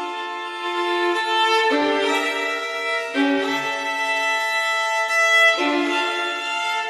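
Background music of slow, held bowed-string chords that change every couple of seconds.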